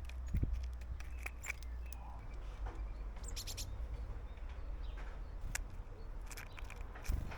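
Small wild garden birds at a seed feeding spot: short scattered chirps and clicks over a steady low rumble, with a quick run of high chirps near the middle. A dull thump comes about half a second in and another near the end.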